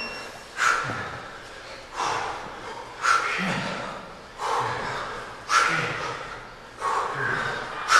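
Sharp, forceful breaths pushed out with each kettlebell rep, about one every 1.3 seconds. Each starts suddenly and fades off.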